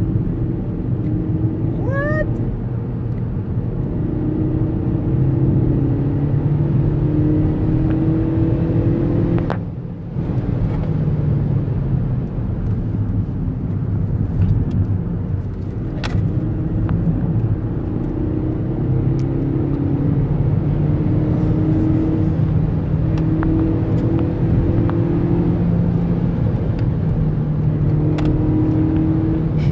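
Car engine and road noise heard from inside the cabin while driving, the engine note shifting up and down in steps. There is a brief rising whistle about two seconds in and a few sharp clicks.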